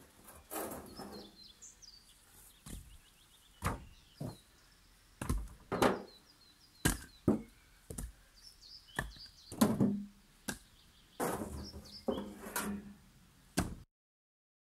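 Split firewood logs knocking and clunking together as they are stacked on a woodpile from a wheelbarrow: about a dozen sharp wooden knocks at uneven intervals.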